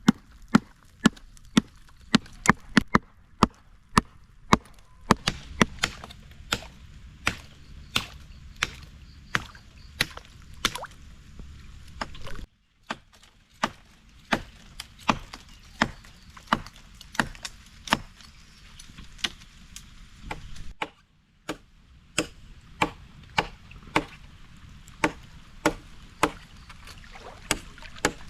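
Steady, rhythmic chopping of wood: a sharp blade strike about every half second. The sound cuts out briefly twice, once near the middle and once about three quarters of the way through.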